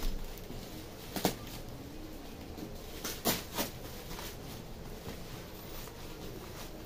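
A few sharp knocks: one about a second in, then three in quick succession around three seconds in, over a low steady background.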